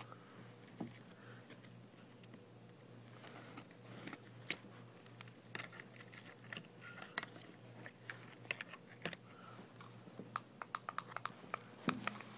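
Scattered light clicks and taps, with a quick run of clicks near the end, over a faint steady low hum.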